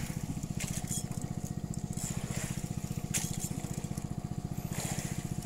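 A small engine aboard a fishing boat running steadily with a rapid, even chugging.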